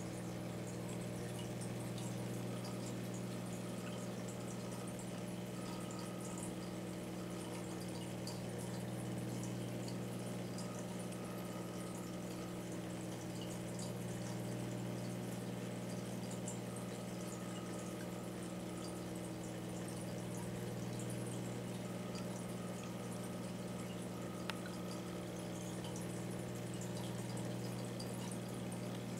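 Aquarium pump humming steadily, with water bubbling and trickling in the tank.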